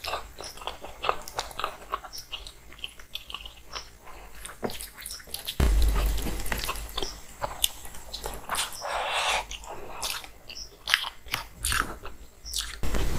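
Close-miked eating sounds: chewing of rice and curry eaten by hand, with many short wet mouth clicks and smacks. A dull thump about five and a half seconds in.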